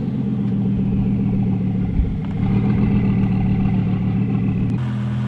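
BMW 520d four-cylinder diesel engine running at idle, its note shifting slightly about a second before the end.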